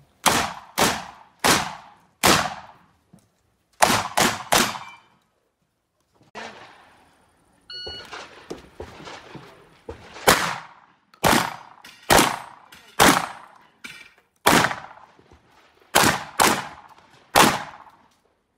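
Benelli semi-automatic shotgun fired in quick strings of shots, roughly a half-second to a second apart, each shot ringing out briefly. A short electronic shot-timer beep sounds about eight seconds in, after a brief gap, and the shooting resumes.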